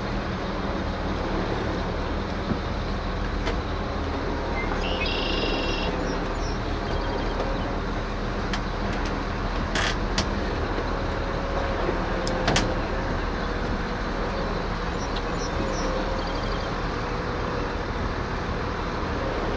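Steady low hum of a vehicle engine as the boat trailer is backed down a launch ramp, with a few sharp knocks about halfway through.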